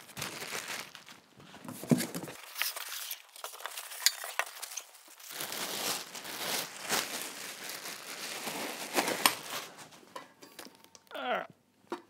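Clear plastic wrapping crinkling and rustling as a steel telescope tripod is pulled out of it and out of its cardboard box, with scattered knocks and clinks from the tripod's metal legs.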